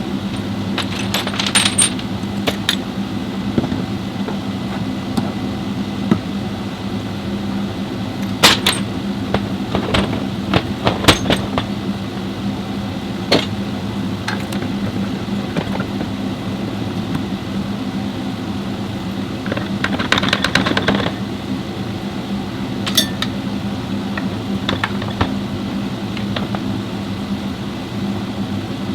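Metal tools and small metal parts clinking and tapping now and then, with a quick run of clinks about two-thirds of the way through, over a steady low hum.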